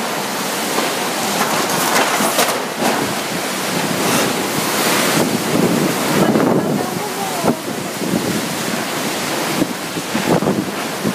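Typhoon-force wind and driving rain making a continuous loud rush that swells and eases in gusts every second or two, with wind buffeting the microphone.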